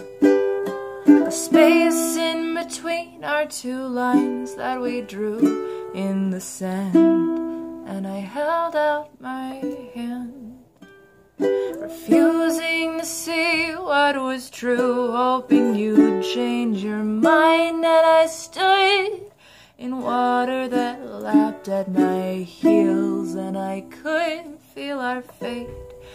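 A woman singing a slow song while strumming a ukulele, the sound carrying a small-room echo. The playing breaks off briefly about eleven seconds in.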